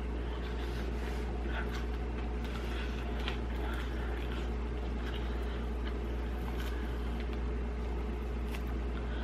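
Steady low hum throughout, with scattered soft clicks and smacks of chewing and of fingers handling food.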